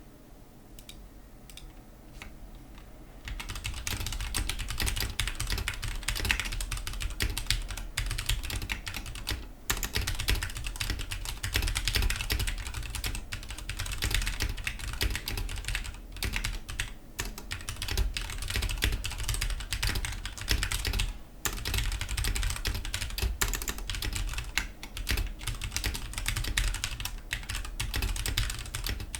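Fast, continuous typing on a Ducky One 2 Mini mechanical keyboard with Cherry MX Silver linear switches, resting on a cloth mousepad. After a few scattered keystrokes it becomes steady, rapid clacking about three seconds in, broken by two short pauses.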